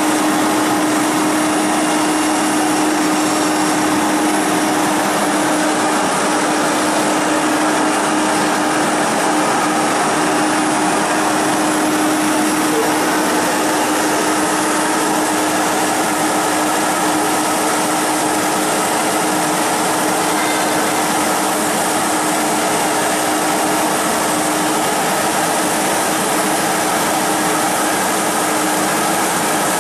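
CNC router's HSD spindle running and its bit engraving a design into an MDF board: a loud, steady whirring machine noise with a steady hum that weakens about halfway through.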